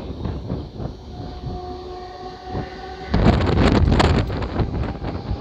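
Mumbai suburban electric train running, with a steady tone over the rumble. About three seconds in, the wheels start a much louder, dense clattering and rattling over the rails.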